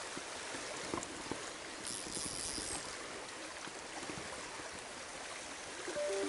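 Steady rush of a strong river current flowing over rocks, with a couple of faint clicks about a second in. Music with held notes comes in right at the end.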